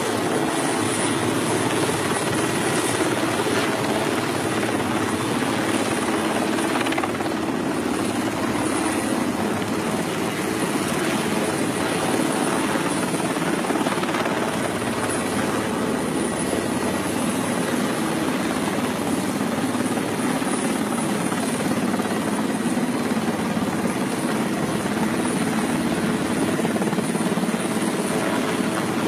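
Military transport helicopter hovering close overhead with an underslung load on a long sling line: steady, loud rotor and turbine noise.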